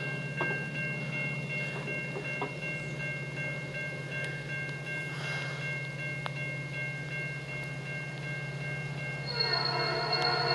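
An approaching diesel freight train gives a steady low rumble in the distance. Near the end the locomotive's air horn starts to sound, a held chord of several notes.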